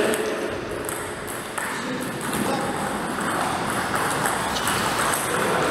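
Table-tennis rally: the celluloid-type ball clicking back and forth off the rubber bats and the table top in a run of short, sharp ticks.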